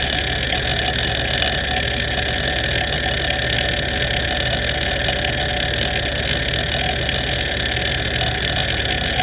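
NEC D3724 426 MB single-platter hard drive seeking rapidly and continuously under the hdmotion test. The head actuator gives a dense, even chatter over the steady tones of the spinning platter.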